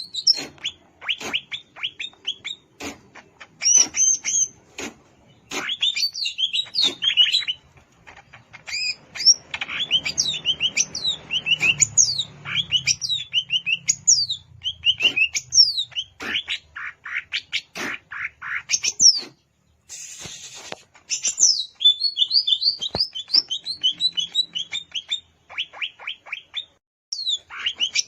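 Greater green leafbird (cucak ijo) singing: rapid, varied phrases of sharp chirps and whistled notes that sweep up and down, with a brief pause a little past two-thirds of the way through.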